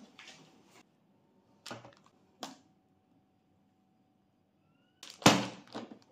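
Plastic lid of a countertop vacuum sealer being pressed shut: two sharp clicks a little under a second apart around two seconds in, then a loud clack about five seconds in as the lid latches, followed by a few lighter clicks. The vacuum pump is not running.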